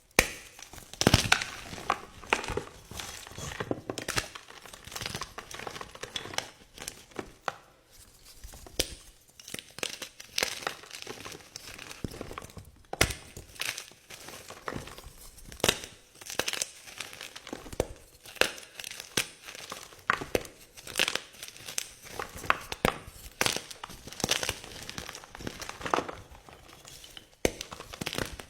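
Crunchy blocks of gym chalk being crushed by hand, with dense irregular crackling and sharp snapping crunches about once a second as the blocks break apart.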